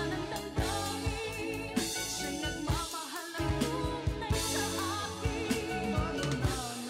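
A pop ballad with a singing voice and band backing, and drums played along on a Roland electronic drum kit. The drums and bass drop out briefly about three seconds in.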